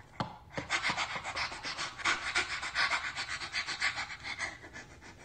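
Rapid, dog-style panting: a quick, even run of short breaths that starts just under a second in and grows fainter near the end.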